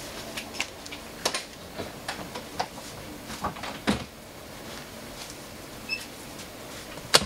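Scattered clicks and knocks of a fold-down snack table at a railway coach's side berth being handled, with one sharp knock near the end.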